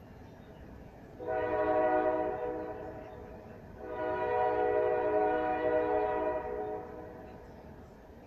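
Train horn sounding two long blasts, each a chord of several steady tones, the second trailing off near its end.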